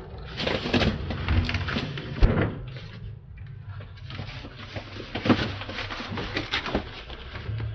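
Irregular knocks, bumps and rattles as a refrigerator is handled and rolled into place, with a sharp knock about two seconds in and another about five seconds in.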